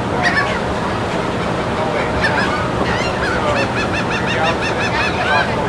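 Several gulls calling, with a fast run of short, even calls, about five a second, in the second half, over steady low wind and surf noise.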